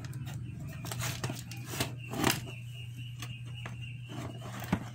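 An analog multimeter and its test probes being handled and moved about over the open microwave's chassis: a few light clicks and knocks, the strongest about two seconds in, over a steady low hum.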